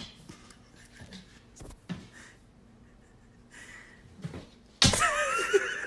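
Faint light taps and scuffs, then close to five seconds in a sudden loud, high-pitched wavering cry that rises and falls.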